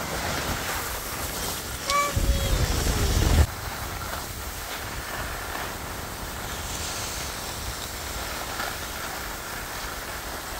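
Wind rushing over the microphone and skis hissing over packed snow while skiing. About two seconds in a voice calls out briefly, and a loud low wind rumble cuts off suddenly a little after three seconds.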